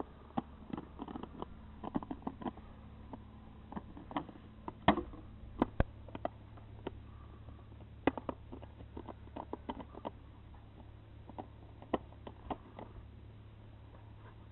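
A dog chewing a crushed plastic bottle: irregular sharp crackles and crunches of the plastic under its teeth, the loudest about five seconds in.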